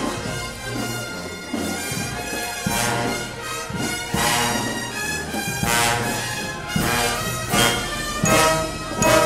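Marching brass band playing a tune as it passes, horns holding long notes, with sharp accented hits every second or two.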